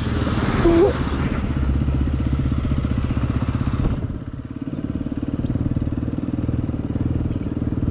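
Motorcycle engine running steadily while riding on the road, easing briefly about four and a half seconds in.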